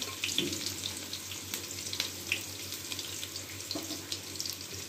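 Sliced red onions sizzling in hot oil in a pot, with a steady hiss and many small irregular crackles. Near the start, the last slices are scraped off a wooden chopping board into the pot.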